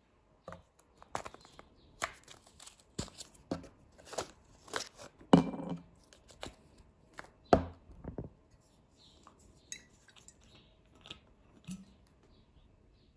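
A plastic tube of Altapharma Vitamin B12 effervescent tablets being handled: a string of separate clicks, knocks and scrapes, the loudest about five and a half seconds and seven and a half seconds in.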